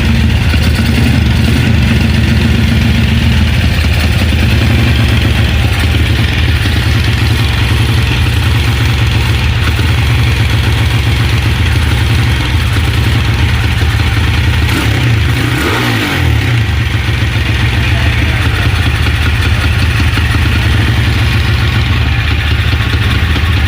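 Honda CG125 motorcycle's single-cylinder engine running steadily. About sixteen seconds in, its pitch briefly dips and comes back.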